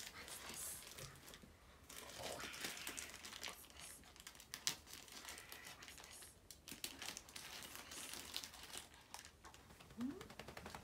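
Plastic poly mailer bag crinkling and rustling as it is handled and pulled open, with scattered small clicks. A short rising squeak near the end.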